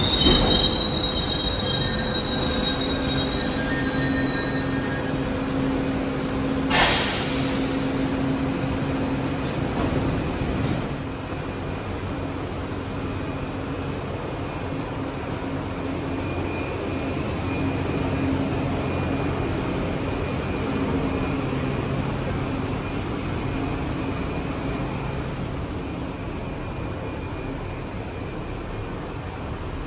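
Kawasaki R62 subway train arriving at a station: its wheels squeal with a high tone that rises over the first few seconds. A short, loud hiss comes about seven seconds in, and after that a steady hum as the train stands.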